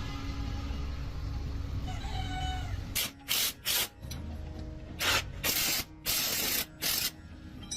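A low steady rumble, with a short wavering cry about two seconds in, then a run of short hissing bursts, like compressed air or spray being let off in quick spurts.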